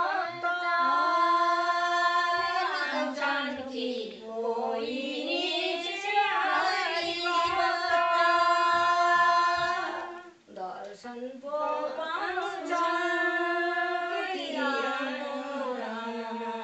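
A group of women singing a Nepali sangini folk song unaccompanied, in unison, with long held notes that slide between pitches. The singing breaks off briefly about ten seconds in, then resumes.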